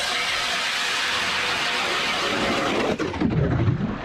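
StrikeMaster electric ice auger drilling through lake ice: a steady motor hum under the grinding and hiss of the bit cutting ice. About three seconds in the sound turns deeper and louder as the auger breaks through and water surges up the hole, then drops away near the end.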